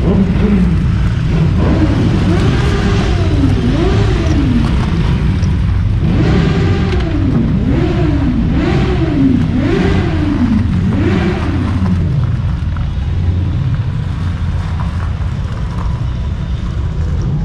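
Motorcycle engines running with a steady low rumble. Over it, an engine is revved up and down over and over, each rise and fall lasting about a second, for roughly ten seconds before it fades.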